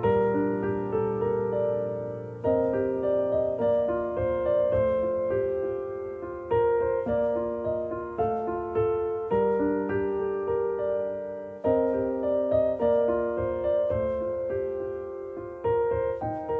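Soft piano background music: struck notes that ring and fade, with the chords changing every second or so.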